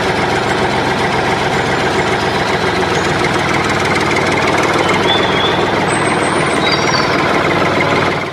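Tractor engine running steadily, with a few faint high bird-like chirps a little past halfway.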